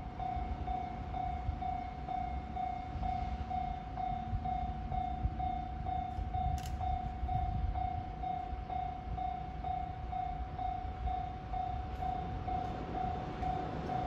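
Japanese railway level-crossing warning bell: an electronic tone sounding in steady, even pulses a couple of times a second, over a low rumble. It is the crossing's alarm for an approaching train.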